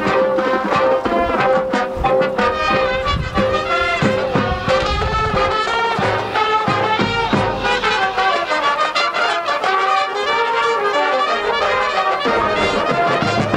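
High school marching band playing its field show: the brass section (trumpets and trombones) carries the music over steady drum hits.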